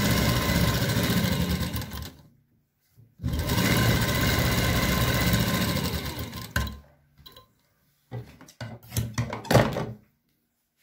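Seiko Export sewing machine stitching through satin, running in two bursts of about two and three seconds with a brief stop between, the second slowing to a halt. Then a few short clicks and rustles as the cloth is handled at the machine.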